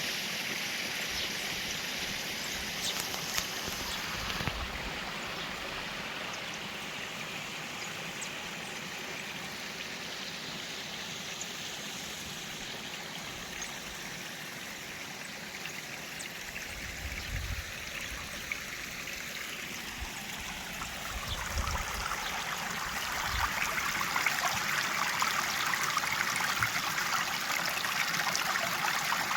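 Water running and splashing over a small cascade or stream, a steady rushing that grows louder and brighter about two-thirds of the way through.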